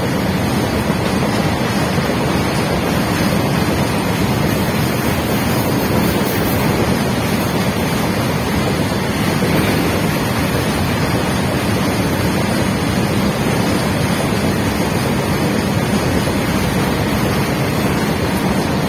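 Steady rolling noise of a long freight train of BOXN open wagons passing on the rails below, with wind buffeting the microphone. It keeps up as the last wagons and the brake van go by.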